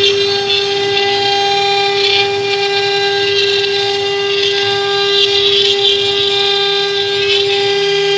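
CNC router spindles running at a steady high-pitched whine while their bits carve pine wood, with a rasping cutting noise that rises and falls as the bits move through the wood.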